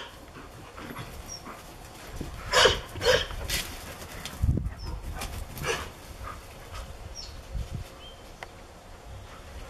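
Dogs at play barking: two short, sharp barks close together about two and a half to three seconds in and another near six seconds, with a low thump about four and a half seconds in.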